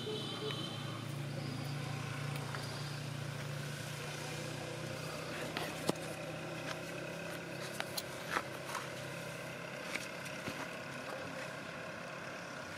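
A low, steady motor hum, like a distant engine, that fades away over the first eight seconds or so, with scattered faint clicks and rustles.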